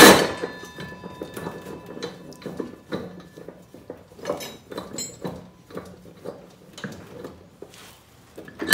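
Scattered metallic clinks and knocks as a mower blade and its bolt are worked off and handled under a zero-turn mower's steel deck. A short, louder burst comes near the end.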